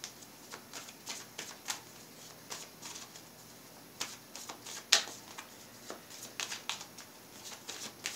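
A deck of tarot cards being shuffled by hand: a run of soft, irregular card clicks and slaps, with one sharper snap about five seconds in.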